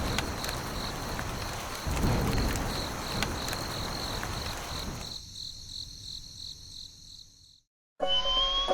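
Nature ambience of insects chirping in an even pulse, about four chirps a second, over a steady hiss like rain, with low rumbles near the start and about two seconds in. It fades out near the end, and after a brief silence light music begins with a rising slide-whistle glide.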